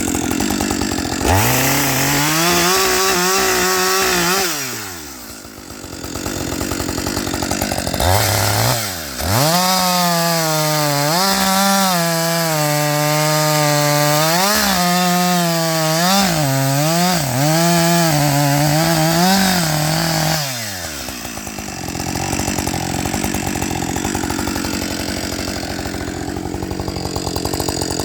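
Husqvarna 555 two-stroke chainsaw idling, then revved to full throttle for about three seconds and dropped back. It is then held at high revs for about eleven seconds, the engine speed sagging and recovering several times, before it falls back to idle.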